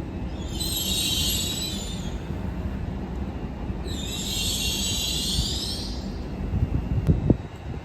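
Train moving through a station with a low rumble and two spells of high-pitched metallic squealing, the first about half a second in and the second around four seconds in. A few low thumps come near the end.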